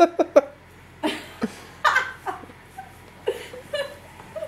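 People laughing: a quick run of short laughs in the first half second, then scattered chuckles and brief vocal sounds.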